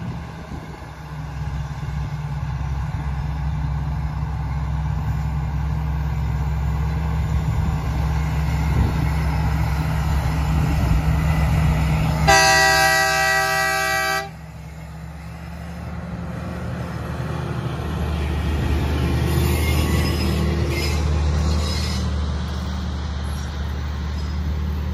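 Sugarcane train's diesel locomotive approaching with its engine running louder as it nears, then sounding its horn in one long blast of about two seconds. After the horn, the loaded cane bins roll past on the narrow-gauge track.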